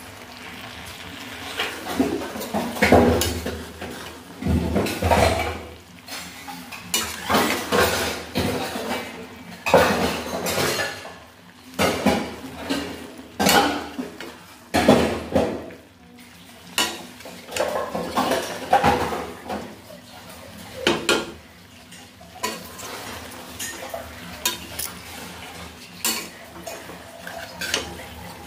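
Metal spatula scraping and clanking against an aluminium kadhai as chopped leafy greens are stirred and turned, in irregular strokes that grow quieter over the last several seconds.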